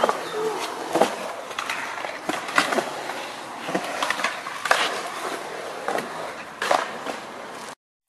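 An old city bike with a rear rack and fenders rolling over a concrete skatepark. Its tyres hiss steadily, broken by repeated sharp knocks and rattles from the frame as it runs over the ramps. The sound cuts off just before the end.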